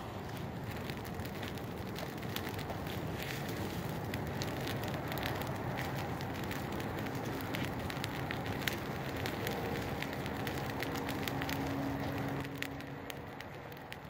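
Bonfire of dry brush, twigs and grass burning steadily, with frequent sharp crackles and pops.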